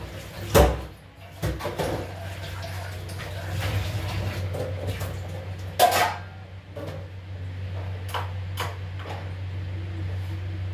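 Knocks and clatter, loudest about half a second in and again near six seconds, with a few lighter clicks later, over a steady low hum.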